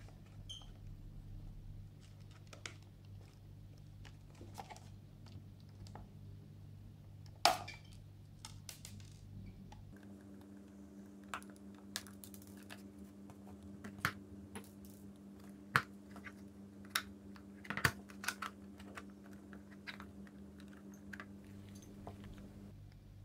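Plastic case of a screwdriver bit set being handled and pried open: scattered light clicks and snaps, the sharpest about seven and a half seconds in and again near eighteen seconds.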